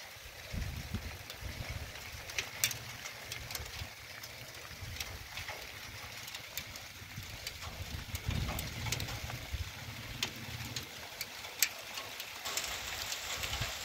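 Rain and small hail falling on a flat earthen roof, heard as a steady hiss with scattered sharp ticks of pellets striking close by. Gusts of wind rumble low on the microphone.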